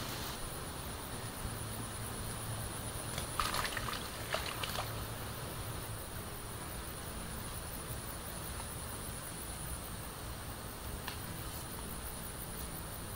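Outdoor ambience dominated by a steady, high-pitched insect drone, with a few light clicks and taps about three to five seconds in.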